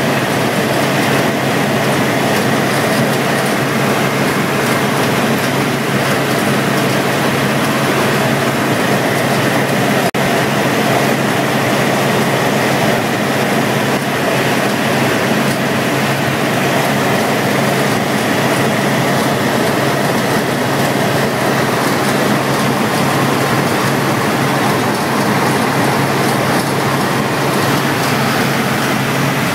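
Helicopter in flight heard from inside the cabin: engine and rotors running with a loud, even drone and a constant low hum. The sound drops out for an instant about ten seconds in.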